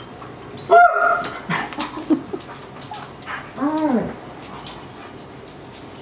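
A dog whining for a treat. A loud high whine with a sharp downward yelp comes about a second in, then a shorter whine that rises and falls about four seconds in, with scattered sharp clicks between them.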